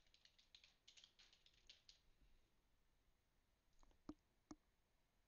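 Faint computer keyboard typing: a quick run of keystrokes for about two seconds, then two louder single clicks about four seconds in.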